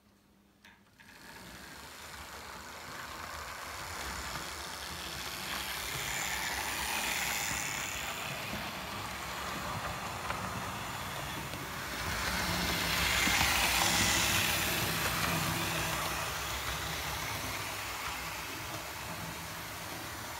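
Hornby APT OO-gauge model train running on sectional track, its electric motor humming and its wheels rattling over the rail joints. The sound starts about a second in, grows louder as the train passes close, and eases off a little as it moves away.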